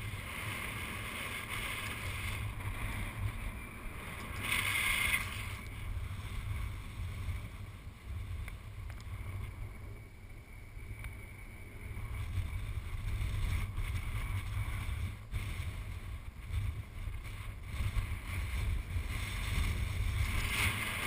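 Strong ridge wind buffeting the camera's microphone: a low, fluttering rumble that swells and dips with the gusts, with a brief louder hiss about five seconds in.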